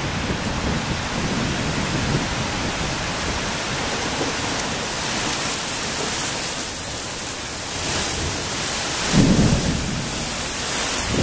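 Thunderstorm rain hissing steadily as the downpour sweeps in, growing heavier about halfway through. A loud low rumble comes about nine seconds in.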